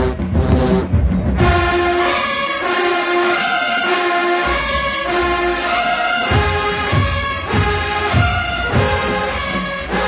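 A large marching band of sousaphones, horns and drums playing. It opens on drums and low brass; about a second and a half in, the full horn section comes in with held chords over the drum beats.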